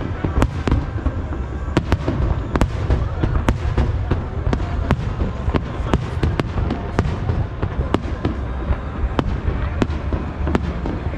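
Fireworks display: aerial firework shells bursting in a rapid, irregular volley, several sharp bangs a second, over a continuous low rumble.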